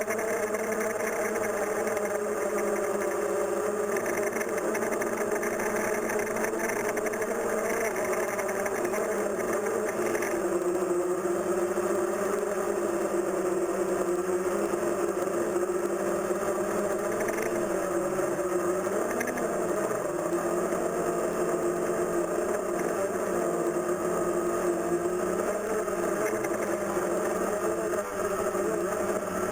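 DJI Phantom 1 quadcopter's four motors and propellers whining steadily, heard from the camera carried on the drone, the pitch wavering slightly as the motors adjust.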